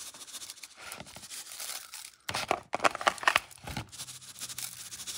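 Bare hands tossing raw, salted smelt fish in a plastic bowl. It is a run of quick, wet handling noises as the fish rub and knock against each other and the plastic, louder from about two seconds in.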